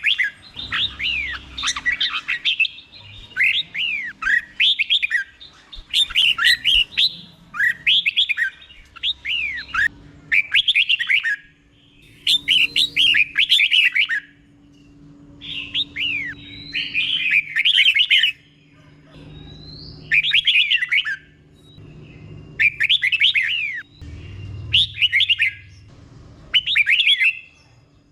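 Red-whiskered bulbul singing its doubled song: short, bright, warbling phrases of about a second each, repeated every couple of seconds with brief pauses between them.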